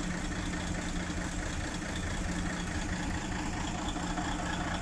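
An engine idling steadily, a low, even hum with no change in speed.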